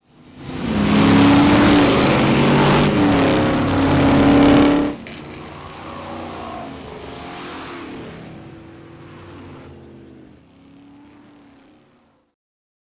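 Car engine and exhaust revving loudly, the pitch rising and falling, for about five seconds. It then drops suddenly to a quieter running that fades away by about twelve seconds.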